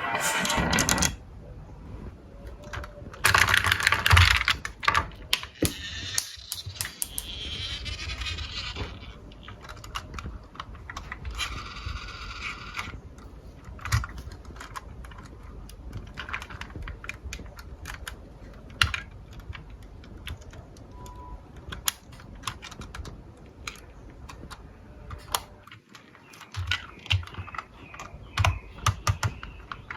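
Marbles clicking and clattering down a wooden marble run: a scatter of sharp, irregular clicks, with longer rolling rattles in the first several seconds.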